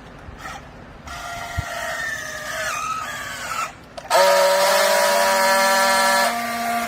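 Vertical clothes baler's hydraulic power unit whining. The pitch drifts for a couple of seconds, then a louder, steady whine cuts in suddenly about four seconds in and eases off near the end.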